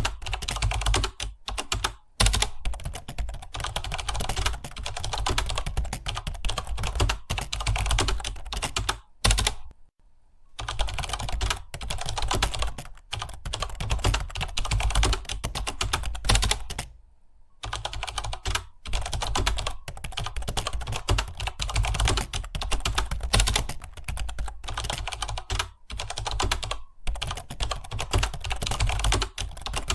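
Computer keyboard being typed on fast and continuously, a dense stream of key clicks, with two short pauses, one about nine seconds in and one about seventeen seconds in.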